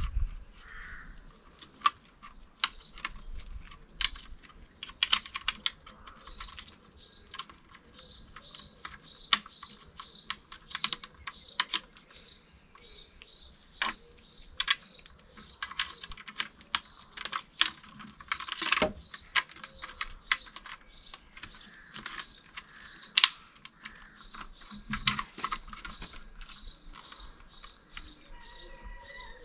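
Irregular light plastic clicks and rattles of the boot lid handle's wiring and electrical connectors being handled and plugged in. A bird chirps behind them in runs of short high notes, about two or three a second.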